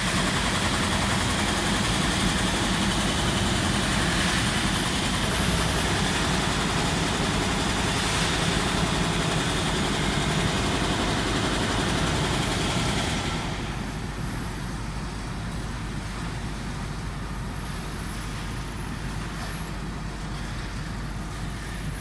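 A heavy vehicle engine runs steadily, loud at first, then quietening markedly about two-thirds of the way in.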